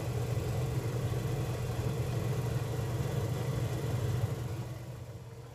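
Steady low hum of a running portable induction cooktop and its cooling fan, easing off a little near the end.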